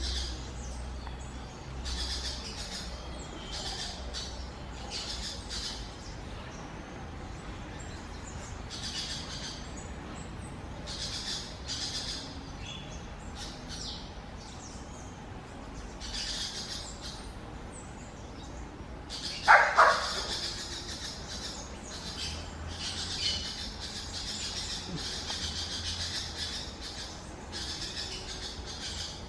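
Wild forest birds calling and chirping, with repeated high calls throughout and one louder, lower call about two-thirds of the way in.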